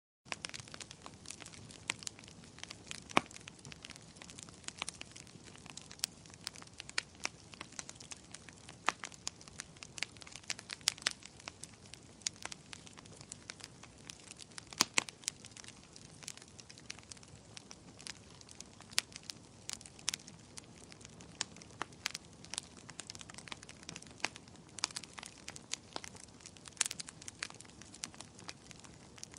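Wood fire crackling steadily over a low hiss, with frequent sharp pops of varied loudness. It cuts in after a split-second of silence at the start.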